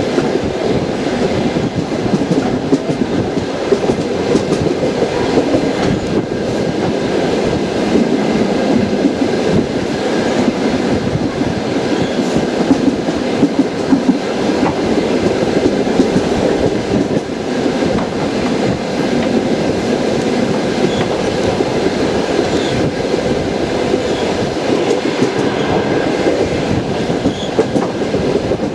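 Passenger train wheels clattering over the rail joints in a steady clickety-clack, with the running rumble of the cars underneath.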